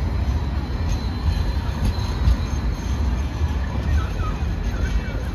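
Sydney light rail trams (Alstom Citadis X05) running along the street, one passing close by as another approaches, with a steady low rumble.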